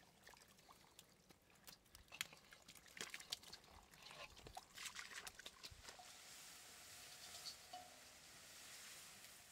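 Faint wet splashing and squelching in shallow muddy water, in scattered small slaps and clicks, giving way about six seconds in to a steady faint hiss.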